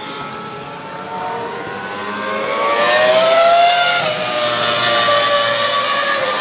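Cosworth 3.0-litre V10 of a Toro Rosso STR1 Formula 1 car accelerating hard and rising in pitch as it comes closer, loudest about three and a half seconds in. A quick upshift near four seconds drops the revs, and it pulls on again.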